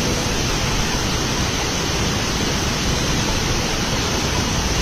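Water rushing steadily at a concrete spillway, an even, unbroken hiss.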